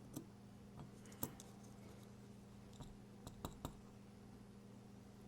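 About seven light, sharp clicks and taps of small metal knife parts and tools being handled during disassembly, spaced irregularly, over a faint steady hum.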